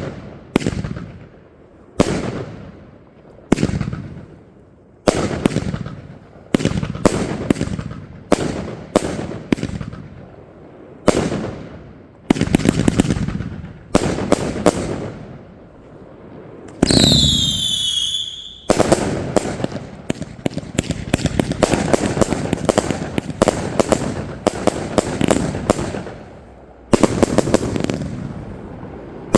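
Consumer firework cakes firing in a chain: single shots bursting with loud bangs about every second and a half, each echoing away. About two-thirds of the way through a falling whistle sounds, followed by a dense barrage of rapid crackling reports.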